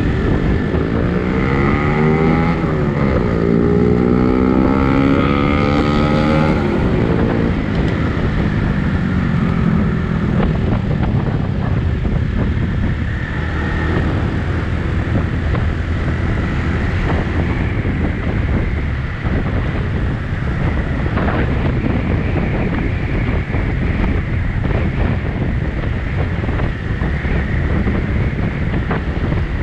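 A vehicle engine running with wind on the microphone. A pitched engine tone rises and falls over the first several seconds, then gives way to a steady low noise.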